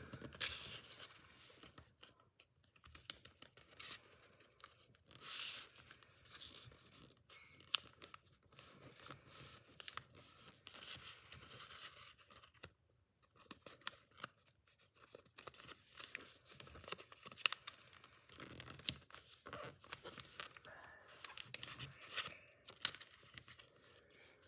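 Origami paper rustling and crinkling in fits and starts as it is folded and creased by hand, with sharp short crackles where the folds are pressed down.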